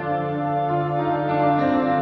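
Background music: slow, sustained ambient instrumental chords.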